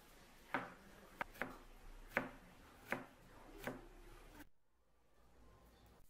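Chef's knife chopping a red onion on a plastic cutting board: about six separate, unevenly spaced knocks of the blade on the board. It stops suddenly about four and a half seconds in.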